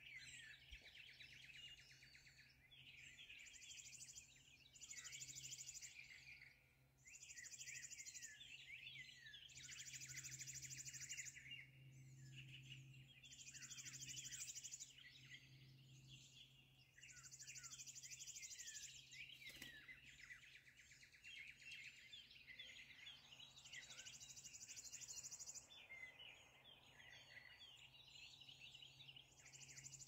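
Faint dawn chorus of songbirds: many overlapping quick chirps and warbles, with a high trill about a second long repeating every second or two.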